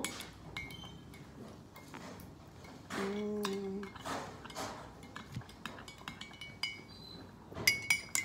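Metal spoon stirring jam into kefir and clinking against a cut-crystal glass bowl, light clinks that ring briefly, coming thicker near the end. A short hummed voice sound about three seconds in.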